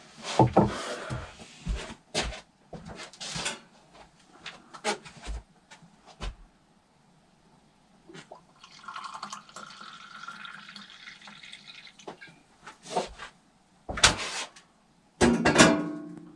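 Scattered short clicks and knocks, then for about three seconds, from about halfway through, water being poured from a kettle into a mug. A few louder knocks near the end.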